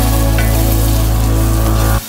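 Background music holding one sustained chord over a deep bass, which cuts off abruptly at the end. A curry gravy sizzles faintly underneath in the pan.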